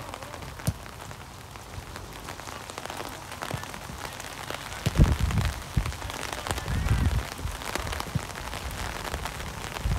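Rain falling, a steady hiss with many small drop ticks. From about halfway on, low rumbling thumps hit the microphone.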